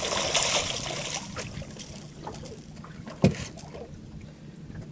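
A hooked catfish splashing and thrashing at the water's surface beside the boat, loudest at first and dying away after a second or two. One sharp knock comes about three seconds in.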